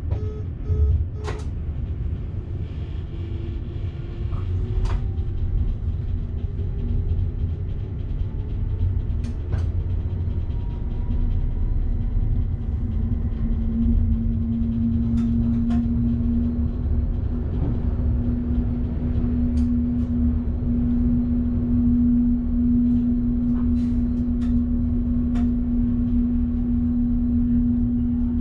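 Electric train running, heard from inside the driver's cab: a steady low rumble with scattered sharp clicks. A steady hum grows much louder from about halfway. A repeating beep cuts off about a second in.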